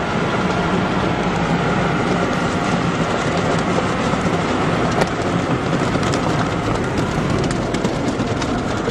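Automatic conveyor car wash at work, heard from inside the car: rotating side brushes scrubbing against the body amid water spray, a steady dense noise over a low motor hum.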